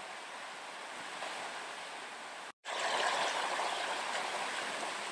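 River rapids rushing over and around boulders, a steady wash of water. About two and a half seconds in the sound cuts out for an instant and comes back louder.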